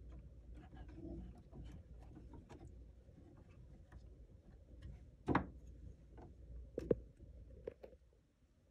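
Hands working a fabric binding strip into a sewing machine's binder attachment at the presser foot: light scattered clicks and taps of handling, with a sharper click about five seconds in and another near seven seconds. The machine is not stitching.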